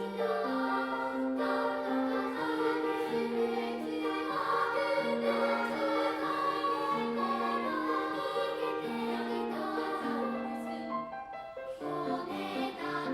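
Children's choir singing a three-part song with piano accompaniment, in steady held notes. The sound drops briefly near the end before the next phrase begins.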